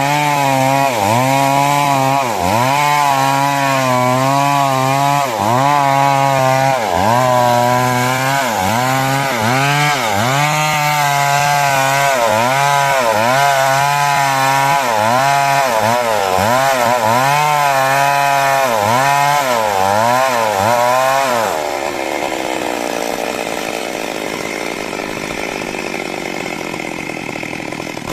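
A 382 chainsaw's two-stroke engine runs at high revs while cutting wood, its pitch dipping and recovering about once a second as the chain bites. About three-quarters of the way through, the throttle is let off and the engine drops to a lower, sagging note.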